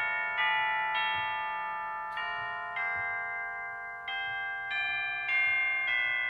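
Instrumental music: ringing, bell-like notes struck about every half second or so in a steady, slow rhythm, each one fading as the next begins.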